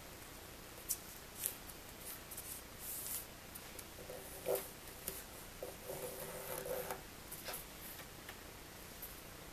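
A thin paper strip being handled and creased by fingers against a wooden tabletop: soft rustling and brushing with a few sharp ticks.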